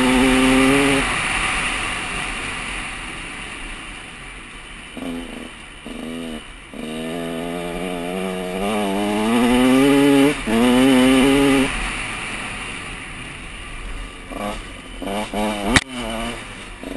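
KTM 150 SX single-cylinder two-stroke dirt bike engine under riding load, revving up and falling back again and again as the throttle is worked, with brief drops between pulls and quick choppy blips near the end. A steady rush of wind noise runs underneath, and a single sharp knock comes near the end.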